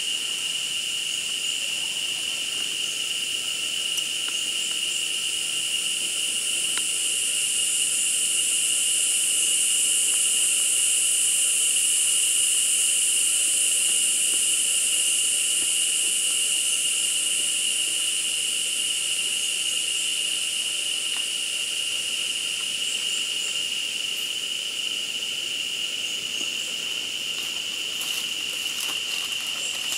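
Rainforest insect chorus: a steady high-pitched drone holding one pitch, over a higher hiss that swells in the middle and then eases off. A few faint clicks near the end.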